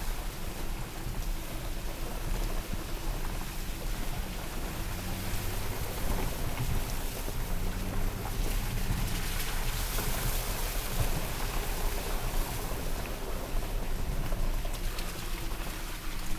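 Steady running noise of a vehicle on a wet street: a low engine hum that shifts slowly in pitch under a constant hiss of tyres on water.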